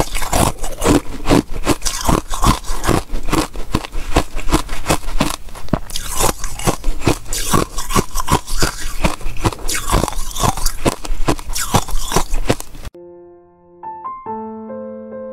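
Close-miked crunching of frozen basil-seed ice being bitten and chewed, several crunches a second. It cuts off suddenly about 13 seconds in, and a few soft piano notes follow.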